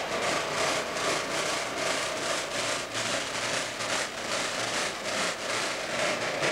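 Steel bolts and nuts rattling and skittering on a vibrating surface, driven by a half-speed recording of car tyres crossing bridge expansion joints. The rattle is dense and irregular, over a steady rumbling noise.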